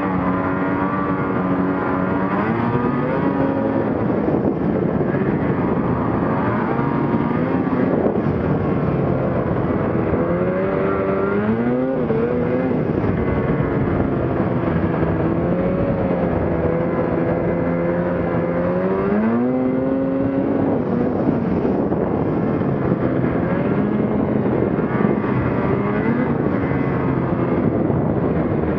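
Ski-Doo Gen 4 850 two-stroke snowmobile engine running under way. Its pitch rises and falls with the throttle, climbing sharply about ten seconds in and again about twenty seconds in.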